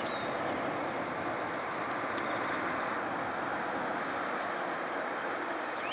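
A Boeing 777-300ER's GE90 jet engines make a steady rushing rumble as the airliner rolls out along the runway after touchdown. Small birds chirp briefly just after the start and again near the end.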